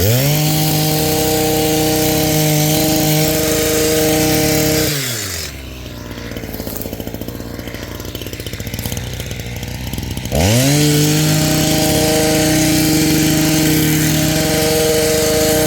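Powered hedge trimmer running in two bursts, cutting back a mum: it spins up, runs steadily for about five seconds and winds down, then spins up again about ten seconds in and runs on steadily.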